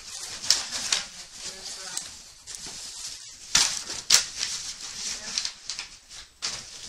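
Cardboard shipping box being opened and dug through by hand: flaps and packing rustling and scraping, with two sharp crackles about midway.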